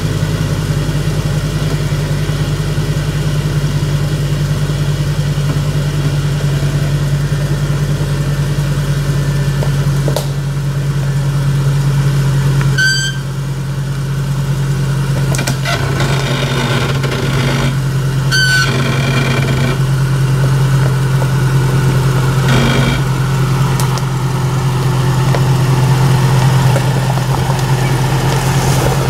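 Jeep Cherokee XJ engine running slow and steady in four-low as it crawls over rocks, with a few knocks from the tires and suspension on stone. Two short high squeals come about halfway through.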